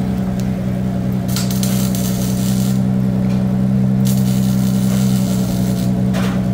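Dodge Challenger's 392 (6.4-litre) Hemi V8 droning steadily, heard from inside the cabin while driving, with two stretches of hiss over it.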